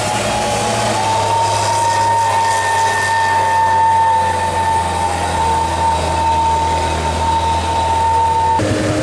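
Heavy diesel truck engine running at a steady pitch with a strong high whine over its low drone. The sound changes abruptly near the end.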